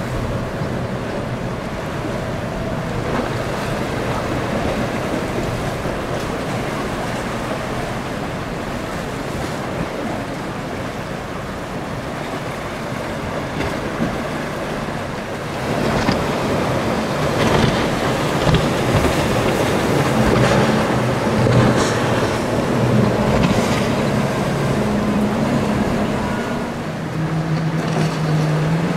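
Powerboat engines running over the wash of waves and wind. About halfway through the engine sound gets louder and a steady low drone comes forward, as a boat runs close by.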